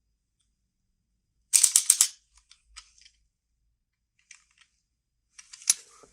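Sharp crackling clicks from handling the packaging of a phone box. They come in two bursts, one about a second and a half in and one near the end, with a few faint ticks between.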